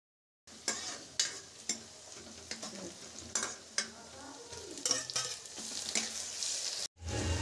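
Onions frying and sizzling in a kadai while a steel ladle stirs them, with a string of sharp clinks and scrapes of the ladle against the pan as chopped tomatoes go in. It starts about half a second in and cuts off just before the end.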